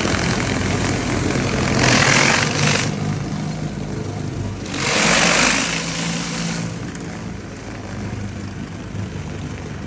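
Small gas engine of a pressure washer running steadily, with high-pressure water spray hissing loudly twice, about two seconds in and again about five seconds in.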